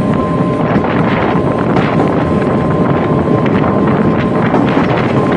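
Steady wind buffeting the microphone of a camera riding on the outside of a moving Newag Impuls electric train, over the train's running noise, with a thin steady whine underneath.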